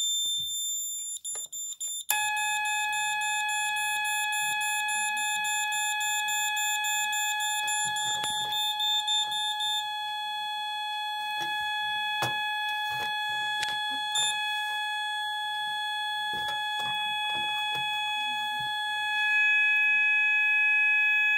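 1989 Moose Z900 alarm system sounding in alarm. A shrill steady beeper tone is joined about two seconds in by a lower, multi-tone steady alarm tone that holds to the end. The high tone pulses rapidly for a moment near the middle, and a few brief clicks fall in the second half.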